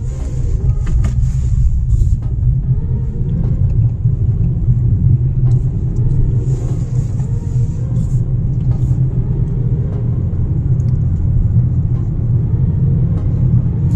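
Steady low rumble of a car being driven, heard from inside its cabin: engine and tyre noise on the road.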